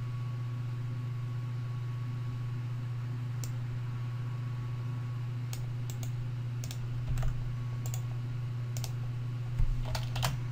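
Scattered computer keyboard clicks, a dozen or so irregular keystrokes, the loudest few together near the end, over a steady low electrical hum.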